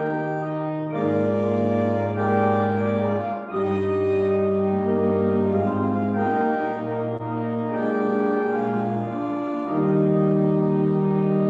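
Pipe organ playing slow, sustained chords over a low bass line, the chords changing every second or two.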